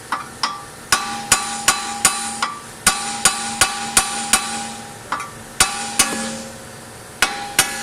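Hammer blows on a car's steering joint, knocking the tie rod end loose from the knuckle without a puller. There are about seventeen sharp, ringing metal strikes in three quick runs, two to three a second.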